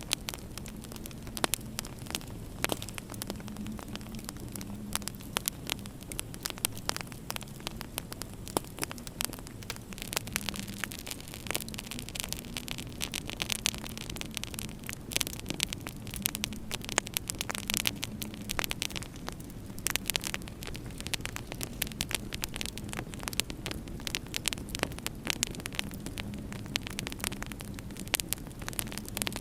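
Wood fire crackling in a fireplace, with dense irregular snaps and pops over a steady low hum.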